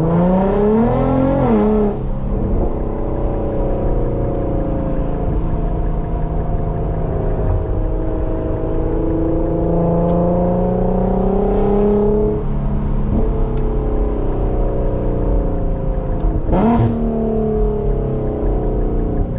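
Infiniti Q50's V6 with a loud exhaust, accelerating on the road: the revs climb for about two seconds and drop at a shift, the engine runs steady, then pulls up through the revs again. A short sharp burst comes about three quarters of the way through.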